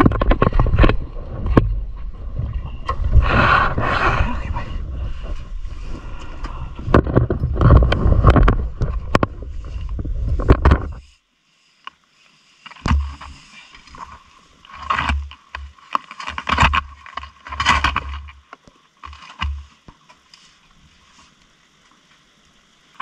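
Heavy wind rumble on the microphone with scraping and knocking handling noises, cutting off abruptly about halfway through; after that, short scattered rustles and knocks.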